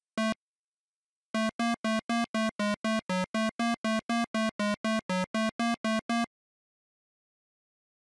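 Short 8-bit synthesizer beeps in a chiptune pattern: one beep, a pause, then a run of about twenty evenly spaced beeps at about four a second that cuts off suddenly about six seconds in.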